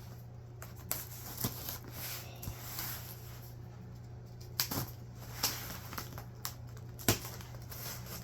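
Cardboard packaging being handled: scattered sharp taps, scrapes and rustles, several of them spread through, over a steady low hum.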